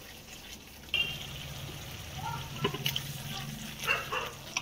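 Wooden spatula stirring and scraping thick gravy in an aluminium kadhai, with a few sharp knocks. Under it runs a steady low hum, and short pitched background calls come about one second and four seconds in.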